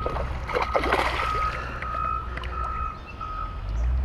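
Baitcasting reel whirring in short, evenly spaced pulses, about two a second, while a hooked smallmouth bass is played, over a low steady rumble.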